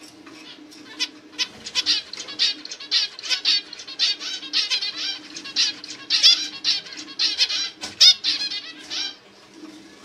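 Male zebra finch chirping: a rapid run of short, high chirps, several a second, soft at first, then dense and loud, and easing off about a second before the end.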